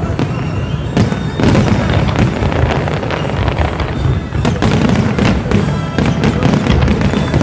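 Fireworks display: a dense, unbroken barrage of shell bursts and crackle, sharp bangs coming many times a second over a heavy low rumble.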